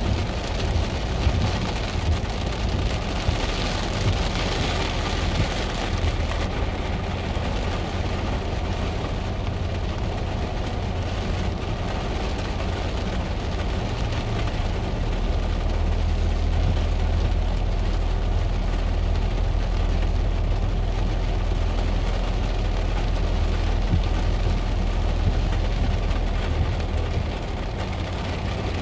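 Rain falling on a car's roof and windshield, heard from inside the cabin, over the low rumble of the car driving slowly on a dirt road. The rain's hiss eases a few seconds in, and the low rumble grows louder about halfway through.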